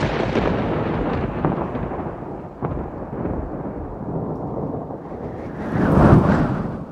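Thunder rumbling: a long roll already under way that slowly fades with a few sharp cracks, then a second peal that swells to its loudest about six seconds in and dies away near the end.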